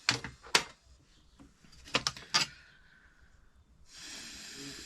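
Metal sockets clinking and knocking as they are picked up and set down: about five sharp metallic clicks, in two clusters. A steady hiss begins near the end.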